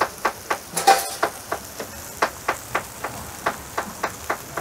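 A metal ladle serving curry from steel bain-marie trays, with one bright clink of metal on metal about a second in. Under it runs a steady rapid ticking, about four ticks a second.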